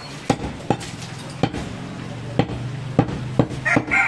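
Heavy butcher's knife chopping goat meat on a wooden tree-trunk chopping block: about seven sharp knocks, unevenly spaced.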